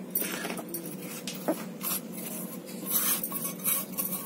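Scratchy scraping and rubbing of a steel bowl and fingers as ground fennel-and-sugar powder is emptied onto wheat flour in a steel plate, with a light knock about a second and a half in.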